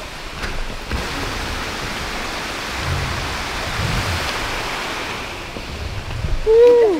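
Steady rushing of a nearby river on the way to a waterfall, with low knocks of the camera being carried. Near the end comes a brief loud whoop that rises and then falls in pitch.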